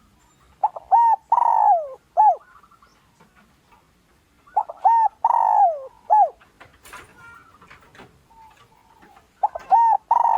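Spotted dove (Streptopelia chinensis) cooing its song three times, about four seconds apart. Each phrase is short coos with one long falling coo. It is the territorial call used as a decoy to draw wild males in to fight.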